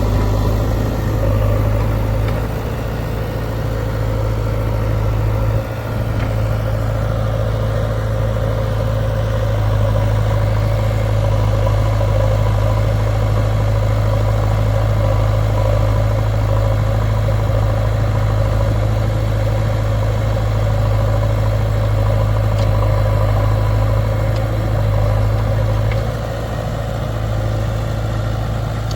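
Diesel engine of a heavy tractor or backhoe running steadily with a deep, even hum, dipping slightly about six seconds in and again near the end.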